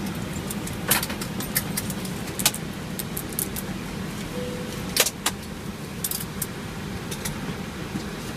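Cockpit switches on an Airbus A319's pedestal and overhead panel being clicked one after another: a string of sharp clicks, the loudest about one, two and a half and five seconds in, over a steady low hum.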